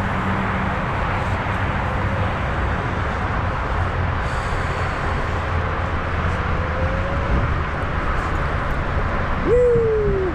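Onewheel electric skateboard ridden off-road: a steady rush of wind and tyre noise, with the hub motor's whine gliding up and down. Near the end the whine jumps sharply up in pitch and slides back down.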